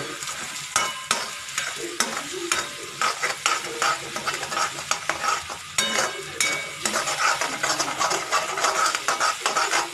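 Spatula stirring and scraping in a steel wok, clacking against the metal many times at an irregular pace, as eggs are mixed into an onion-tomato masala. The mixture sizzles in hot oil throughout.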